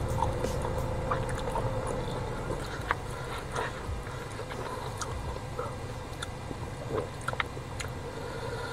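Chewing and small wet mouth clicks of someone eating sauce-coated fried chicken, over a steady low hum.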